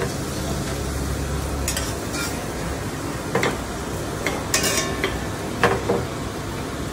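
Flat metal spatula scraping and clicking against an iron pan and a plate a handful of times as omelette is lifted out, over a steady hiss of light frying.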